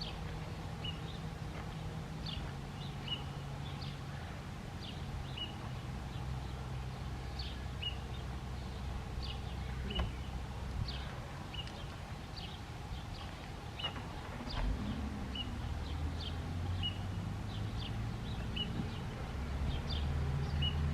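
Outdoor ambience after the siren test: small birds chirping repeatedly over a low steady hum.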